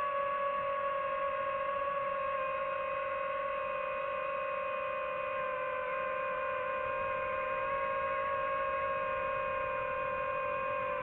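DJI FPV drone's motors and propellers whining at a steady pitch, with a faint hiss underneath; the pitch sags slightly toward the end.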